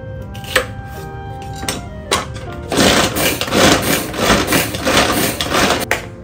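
A few knife chops on a bamboo cutting board, then a pull-cord manual food chopper whirring loudly as its cord is yanked again and again, its blades spinning to mince garlic and onion inside the plastic bowl. Background music plays throughout.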